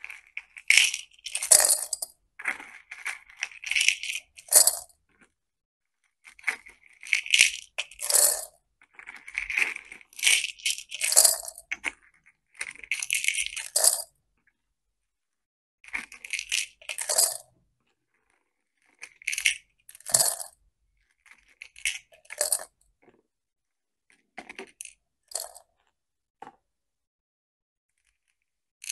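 Small plastic and pearl beads scooped with a plastic scoop and poured into a glass jar, clattering and clinking in bursts. The bursts come thick and fast for the first half, then thin out to short handfuls with pauses between.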